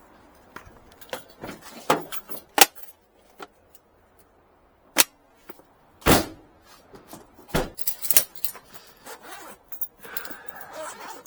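Irregular series of sharp clicks and knocks, with the loudest strikes about five and six seconds in.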